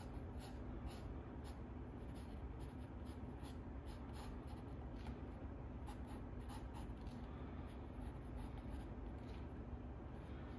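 A drawing tool scratching across sketchbook paper in quick, irregular strokes, over a steady low hum.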